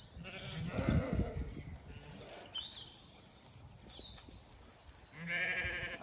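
Zwartbles sheep bleating: one bleat about a second in and a louder, wavering bleat near the end. Short bird chirps in between.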